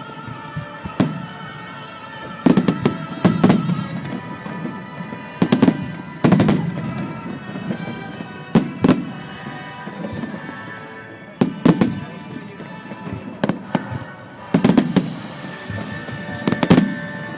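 Aerial fireworks shells bursting in an irregular series of about a dozen sharp booms, each trailing off in a low rumble, with music playing underneath.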